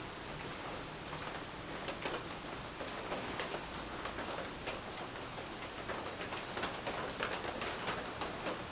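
Rain on a shed roof: a steady patter with scattered sharp ticks, busier from about two seconds in.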